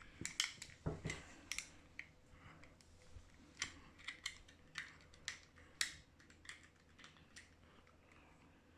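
Irregular small plastic clicks and taps as the opened uConnect headphone housing and its battery door are handled and worked over a locating lug.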